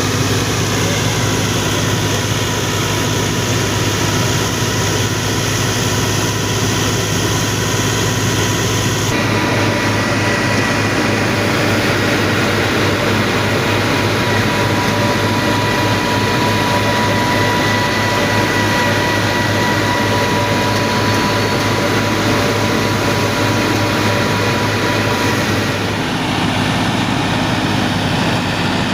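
Massey Ferguson 385 tractor engine running steadily while driving a wheat thresher, a constant low hum with steady high whining tones from the machinery. The sound changes abruptly about nine seconds in.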